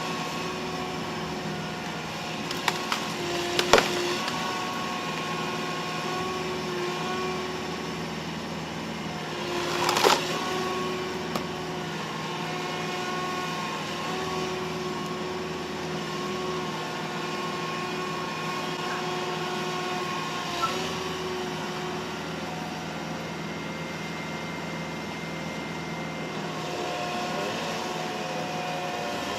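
Heavy machine's engine running steadily with a whining hum that shifts slightly in pitch now and then. Two sharp cracks come about four and ten seconds in.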